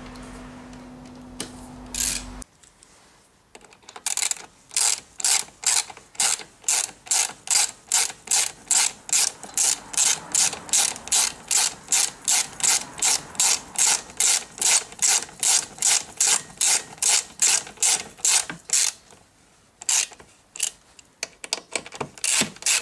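Hand socket ratchet clicking in quick, even strokes, about three a second, as bolts are run in to fix the chair's tilt mechanism to the seat. The strokes start about four seconds in, pause briefly near the end, then resume more unevenly. A steady hum fills the first couple of seconds.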